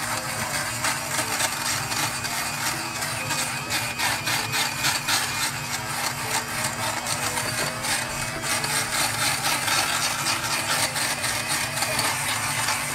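Electric fabric shaver's small motor running with a steady hum, its blades rasping over the fabric with each back-and-forth stroke as it shaves off lint and pills.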